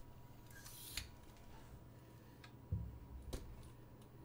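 Handling noise from a camera being moved and set in place: a brief rustle and a click in the first second, then two soft knocks with a click later on.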